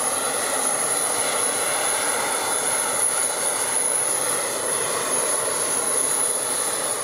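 Jet aircraft engine running steadily: an even rushing noise with a high, steady whine over it.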